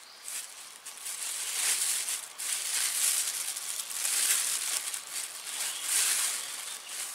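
Plastic bag crinkling and rustling as it is handled and stuffed into another bag, coming in several loud surges.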